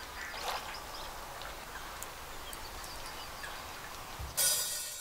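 Birds chirping over a faint steady background hiss, then about four seconds in a band comes in with a sudden loud crash of cymbals and bass that rings on.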